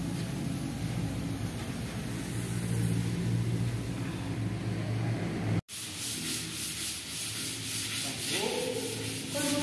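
A steady low hum, cut off abruptly a little past halfway. It is followed by hand sanding: repeated back-and-forth rasping strokes of a sanding block on a board.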